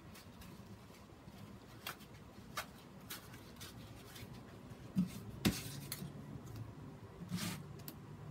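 Hands handling small objects: scattered light clicks and taps, two sharper knocks about five seconds in, and a brief rustle near the end, over a low steady hum.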